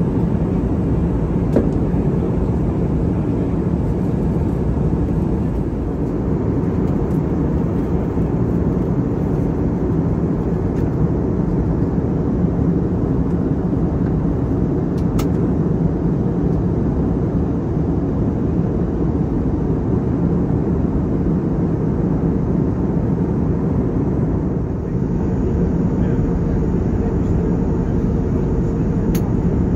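Steady drone inside the cabin of an Airbus A321neo at cruise: its CFM LEAP-1A turbofans and the airflow over the fuselage make an even, deep rushing hum. A couple of faint clicks break it briefly.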